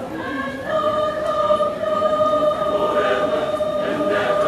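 Mixed choir of women's and men's voices singing, with one long note held from about a second in.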